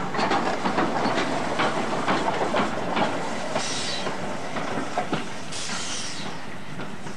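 Small steam tank locomotive close by: irregular knocks and clanks through the first few seconds, then short bursts of steam hissing about every two seconds.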